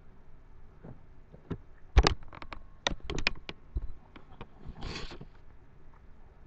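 A string of irregular sharp clicks and knocks, the loudest about two seconds in, then a short breathy burst about five seconds in, like a stifled laugh.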